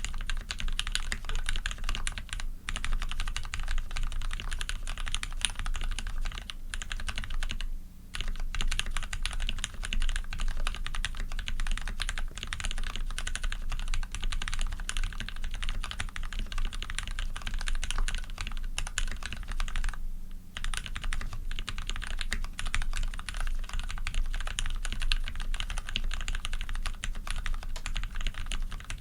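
Continuous fast typing on a custom mechanical keyboard with lubed Cherry Retooled Black linear switches, a brass plate and PBT keycaps, in dense runs of keystrokes. There are brief pauses about 8 and 20 seconds in.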